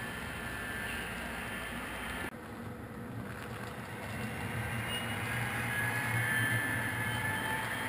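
HO scale model trains running: small wheels rolling on the rails with a steady mechanical noise. The sound changes abruptly about two seconds in. After that, a pair of HO scale diesel locomotive models pass, and their motor hum grows louder.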